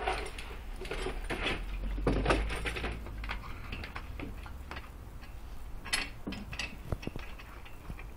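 A dog pawing and splashing at water in a plastic bucket: irregular sloshes and knocks against the bucket, busiest about two seconds in.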